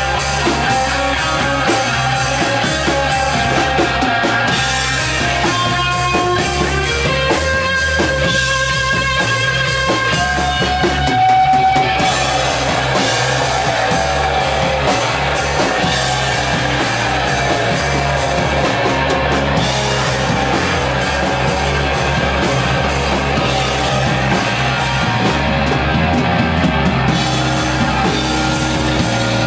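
Doom metal band playing live: heavily fuzzed electric guitar, a Gibson Les Paul through a Matamp GT1 valve amp, with drums and a heavy low end, the guitar holding long sustained notes.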